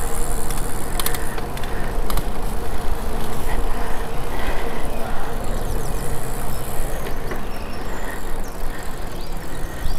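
Wind and road noise heard from a moving bicycle, with motor traffic going by, and two sharp clicks about one and two seconds in.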